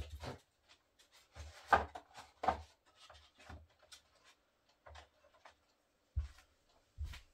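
A few brief soft knocks and rubbing sounds at irregular intervals.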